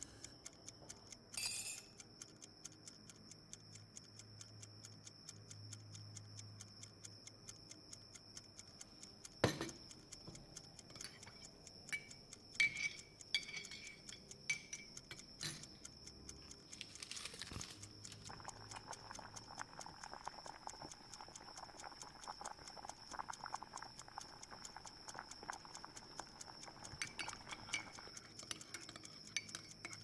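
Faint clinks and knocks of cutlery against dishes and pans at a kitchen counter. There is one sharp knock about nine seconds in and a few lighter clinks after it. From about eighteen to twenty-eight seconds comes a stretch of quick, even scraping.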